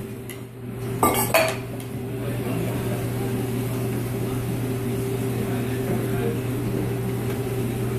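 Metal spatula clanking twice against a steel flat-top griddle about a second in, with a short metallic ring. A steady hum of the kitchen exhaust hood runs underneath.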